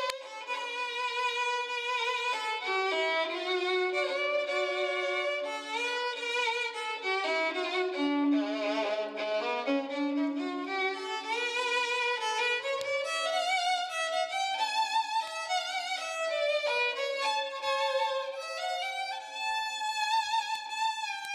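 Solo violin playing a melody with vibrato, its notes climbing and falling.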